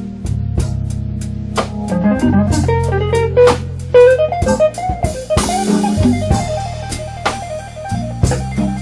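Blues band music with no singing: a guitar playing a single-note lead line over bass and a drum kit.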